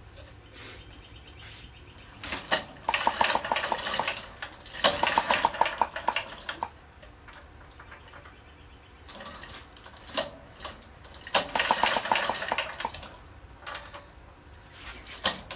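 Single-cylinder Briggs & Stratton engine from a Bolens tractor being cranked by its recoil pull rope several times without firing. Each pull is followed by a second or two of rapid metallic clicking. The engine has lost spark.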